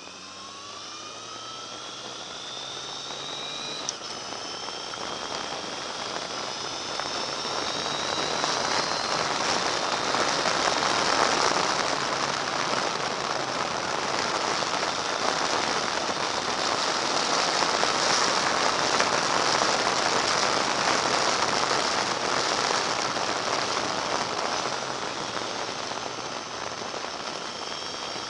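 Motorcycle engine accelerating, its whine rising in pitch with a break about four seconds in, like a gear change. Wind rush on the leg-mounted camera's microphone then swells and drowns it out at speed.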